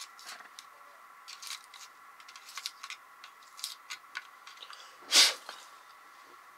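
Styrofoam packing peanuts rustling and crunching as they are moved around in a cardboard box, with scattered light clicks. About five seconds in comes one loud, short rush of noise.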